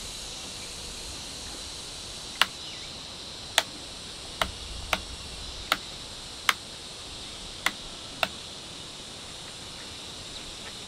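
Eight short, sharp taps or knocks at uneven intervals, over a steady high insect drone, like crickets or cicadas.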